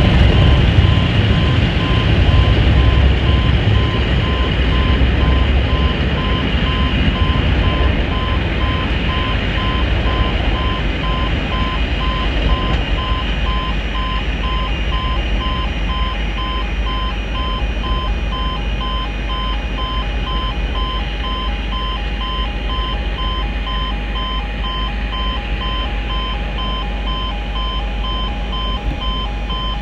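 Class 37 diesel locomotives, with English Electric V12 engines, drawing away, their low engine rumble fading over the first few seconds. Under it an electronic warning beep repeats throughout, and a second, lower beep joins about halfway.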